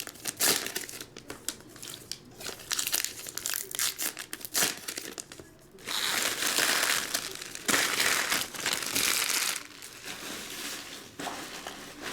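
Baseball card pack wrappers being torn open and crinkled by hand: irregular crackling, densest from about halfway in until near the end.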